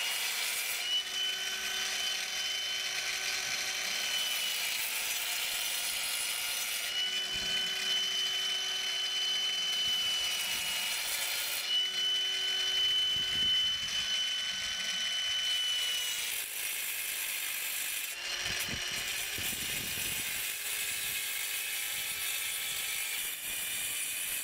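Oscillating multi-tool cutting into a soft stone block: a steady buzz with a high whine over it, running in spells of a few seconds with short breaks between.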